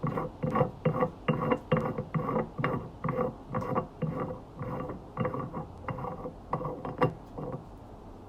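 A valve being unscrewed from a gas cylinder's neck, just after it has broken loose. The threads squeak in short repeated strokes, about two a second, and stop shortly before the end.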